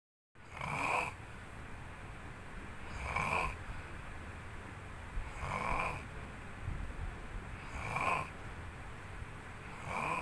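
A sleeping person snoring in a steady rhythm, one snore about every two and a half seconds.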